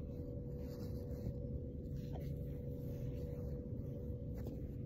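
Steady low background hum with a faint constant tone running under it, and no distinct events.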